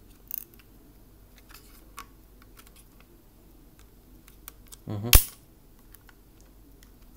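Packaging being handled during an unboxing: a few light clicks and rustles, then one short, loud, sharp snap about five seconds in.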